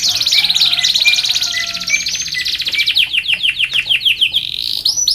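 Domestic canary singing: a fast rolling trill, then a run of quick, downward-sweeping whistled notes about six a second, ending on a brief held note.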